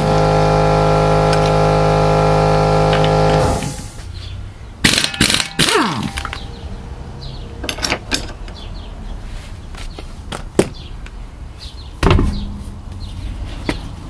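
Air impact wrench spinning lug nuts off a car wheel, a steady high-pitched whirr that stops about three and a half seconds in. After it come scattered metallic knocks and clunks of the nuts and tool, and a heavier thump about twelve seconds in.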